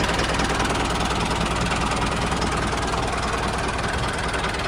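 Tractor engine running steadily at an even pace.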